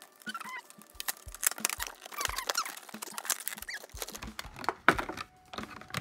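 Clear plastic packaging crinkling and rustling in a series of short, irregular crackles and clicks as hands work a rigid acrylic case out of its bag, with a few brief squeaks of plastic rubbing on plastic.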